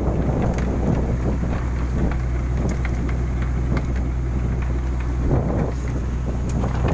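A ship's engine droning steadily, with wind buffeting the microphone and scattered small clicks and knocks.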